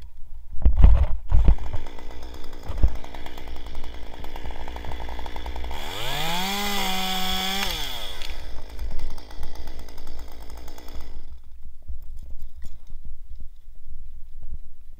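Stihl MS 362 C-M two-stroke chainsaw idling, revved to full throttle for about two seconds as it cuts through a pine trunk, then dropping back to idle and switched off about 11 seconds in. A few heavy knocks come about a second in.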